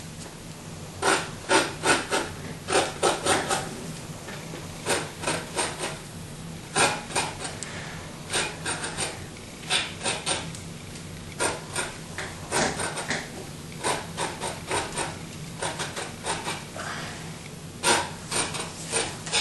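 Short scratchy rubbing strokes on a painted canvas, coming in quick clusters of a few per second with brief pauses between them. A steady low hum runs underneath.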